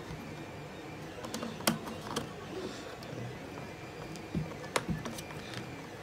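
Hand screwdriver driving a small screw through a plastic 120 mm PC fan's corner hole into a plastic adapter: a few sharp clicks and light ticks as the screw turns and the driver tip shifts in the screw head, the loudest about a second and a half in and near the end.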